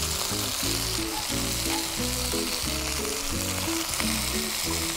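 King George whiting fillets sizzling as they pan-fry in hot oil, a steady hiss. Background music with a changing low melody plays underneath.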